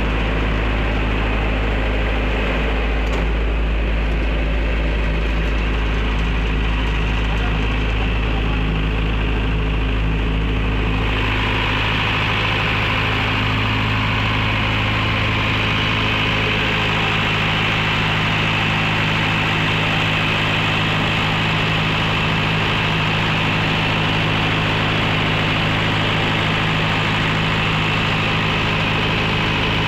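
62.5 kVA silent-canopy diesel generator set running steadily on test, a constant engine hum. About a third of the way in the sound shifts, with less deep rumble and more hiss.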